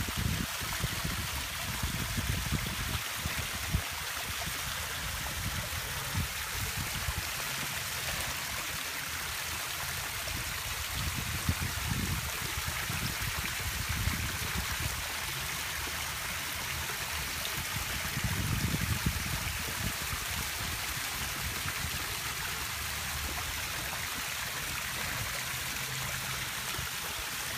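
Small garden pond waterfall splashing steadily into the pond, an even rushing hiss of falling water, with a few brief low rumbles mixed in.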